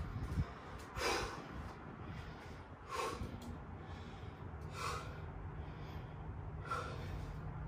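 A man's heavy breathing, deep noisy breaths about every two seconds: he is winded from sets of burpees with push-ups and catching his breath before the next set.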